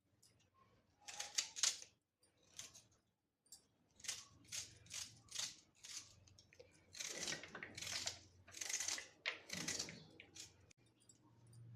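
Knife finely chopping an onion on a chopping board: a run of short cutting strokes, about two a second, heavier in the second half.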